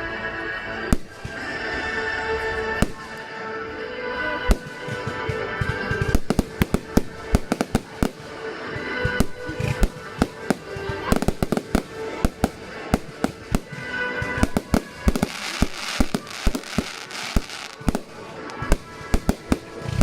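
Fireworks going off: a stream of sharp bangs and crackles that grows denser and faster about six seconds in, with music playing underneath.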